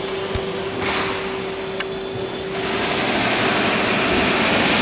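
Small pneumatic rivet gun, a 2X 'buzz gun', triggered in free air, its loose piston hammering rapidly. The loud, even racket starts about two and a half seconds in, after a steady hum and a single click.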